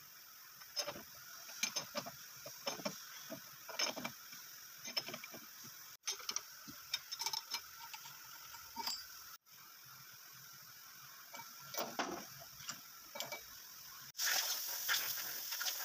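Irregular metal clicks and clinks of a steel step clamp being undone on a milling machine table: a spanner turning the clamp nut, the nut spun by hand on its stud, steel clamp blocks knocking together. Near the end a louder hiss with more clicks comes in.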